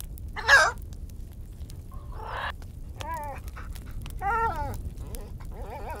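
Sun conure giving one loud, harsh screech about half a second in, followed by a few quieter, shorter wavering high calls.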